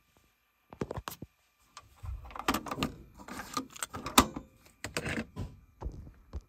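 Plastic clicks, knocks and rattles of a cassette being ejected from a Denon DR-M10 cassette deck and handled: a short burst of clicks from the eject mechanism about a second in, then the cassette shell and deck door clattering with several sharp snaps.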